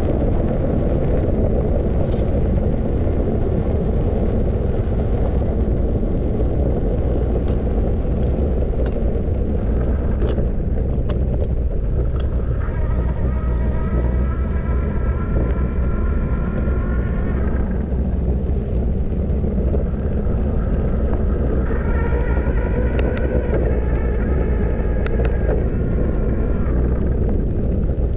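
Wind buffeting the microphone of a moving bike rider, a steady loud rumble. Twice, about halfway through and again near the end, a whine with several stacked tones rises above it and holds for about five seconds.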